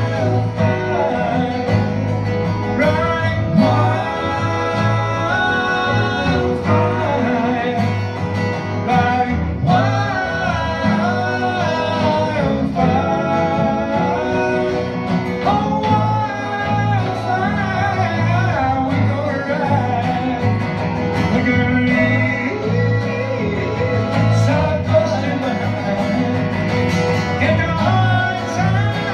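Live country band playing: strummed acoustic guitars and a bass guitar, with a man singing over them.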